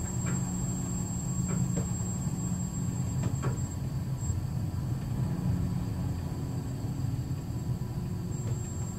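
Steady low rumble on board a cruise ship under way through rough, stormy seas, with a faint high whine that drops out for a few seconds in the middle.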